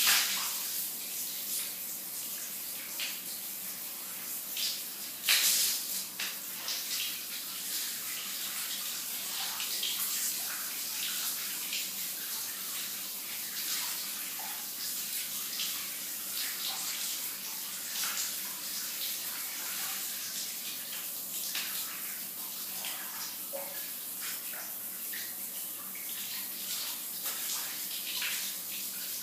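Shower running: a steady hiss of falling water, broken by irregular louder spatters, the strongest just after the start and about five seconds in.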